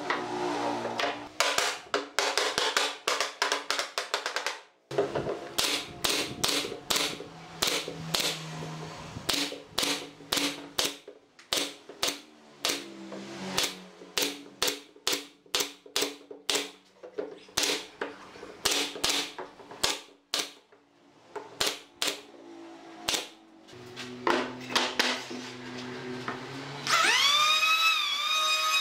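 Pneumatic brad nailer firing again and again into pine seat boards, sharp single shots one to three a second with short pauses. Near the end an electric hand planer's motor spins up and runs with a high whine.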